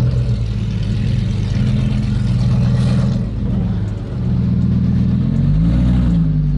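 Car engine running steadily while driving, with a brief rise and fall in engine pitch about five and a half seconds in.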